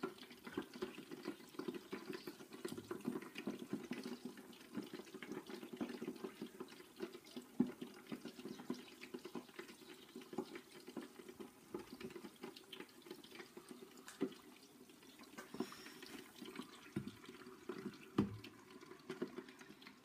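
Hot fat in an electric deep fat fryer bubbling and crackling violently, a dense run of small pops as it boils over the rim. The crackle thins out a little near the end, where a couple of knocks sound.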